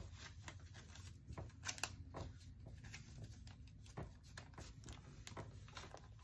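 Faint flicks and rustles of paper banknotes counted by hand and slid into a plastic cash envelope in a binder, a few short crisp ticks among them, over a low steady hum.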